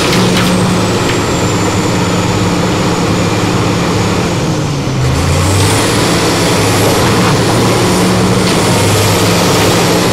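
Komatsu tracked hydraulic excavator's diesel engine running steadily as it works its bucket, its pitch dipping about five seconds in, with a faint high whine that rises and falls.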